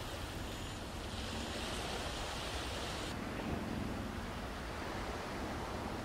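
Outdoor seaside ambience: a steady rush of wind on the microphone with surf from the nearby rocky shore. A higher hiss in the mix drops away suddenly about three seconds in.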